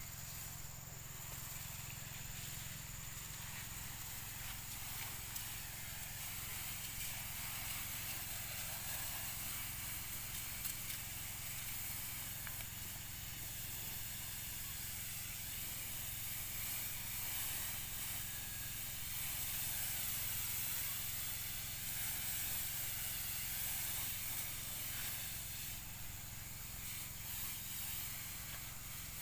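High-pressure spray hissing steadily from a hose wand as weeds are sprayed, with the low, steady hum of the Robin engine driving the sprayer pump underneath.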